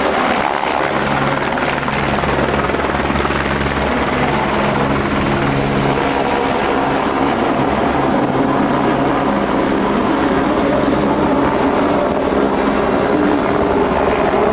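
Helicopter running steadily, a continuous drone of engine and rotor.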